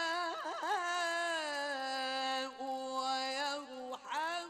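Melodic Quran recitation in tajweed style: one unaccompanied voice holds out a long vowel, with a quick wavering flourish about half a second in, then a steady held note. Near the end the voice breaks off briefly before the next phrase.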